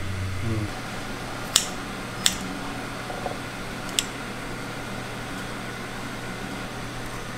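Steady mechanical hum with three sharp clinks, about a second and a half, two and a quarter, and four seconds in. A deeper low hum cuts out within the first second.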